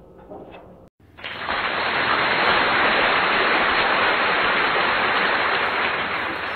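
A steady, loud rain-like hiss starts about a second in, just after a brief drop to silence. Before it come a few light knocks of a plastic basket being handled on a shelf.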